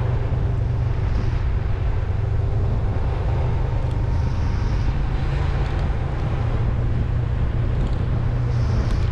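Steady low rumble of a vehicle driving along, engine and road noise, with wind buffeting the microphone.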